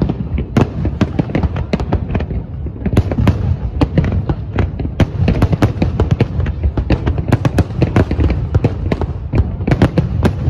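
Aerial firework shells bursting in a dense barrage, several bangs a second over a continuous low rumble.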